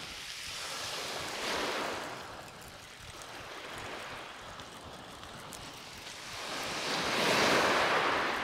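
Small waves breaking and washing up a shingle beach, swelling once about a second and a half in and again, louder, near the end.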